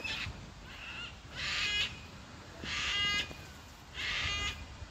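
A crow cawing repeatedly: three drawn-out caws, each about half a second long and about a second and a half apart, after a couple of fainter, shorter calls at the start.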